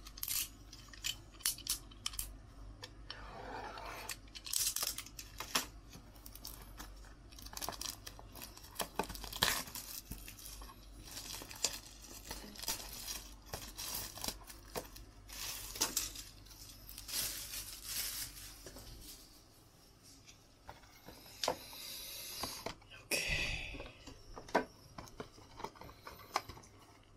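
Clear plastic shrink-wrap being torn and crinkled off a cardboard trading-card box, with many sharp crackles. The handling grows quieter about two-thirds of the way through, with a few last crackles after that.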